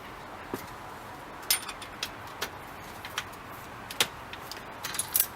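Hand tools clicking and knocking against the metal fittings of a 1973 Raleigh RSW bicycle during disassembly: scattered metallic clicks, with sharper knocks about a second and a half in and about four seconds in, and a quick run of clicks near the end.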